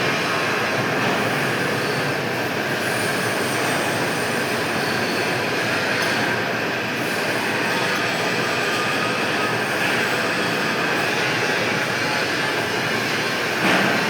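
Pipe-cutting lathe running: a steady mechanical noise with faint thin high tones over it, and a brief louder burst near the end.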